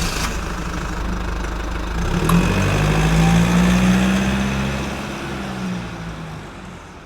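Engine running, picking up in pitch and load about two seconds in, then fading out toward the end.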